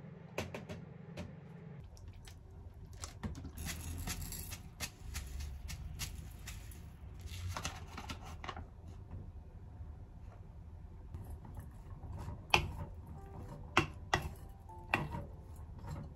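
Food-prep handling sounds: a paper bag of potato starch rustling as it is shaken over a bowl of cooked rice, then a wooden spatula stirring the rice in an enamel bowl, with a few sharp taps against the bowl in the second half.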